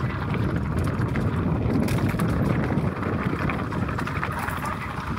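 A mountain bike rolling fast down a dirt singletrack: steady wind rush over the microphone mixed with the tyres on the dirt, with occasional clatter from the bike over bumps.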